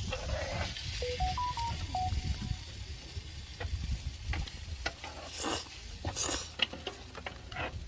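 Food sizzling in a pan as it is stirred, with a few short scraping strokes of a utensil, the loudest a little past halfway. About a second in, a short run of beeping tones steps up and down in pitch.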